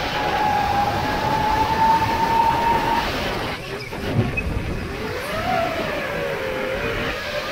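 Drone's electric motors and propellers whining in flight over a rushing wind noise. The pitch climbs slowly, cuts out about three and a half seconds in as the drone flips over, and then comes back with a brief low burst and a whine that rises and falls with the throttle.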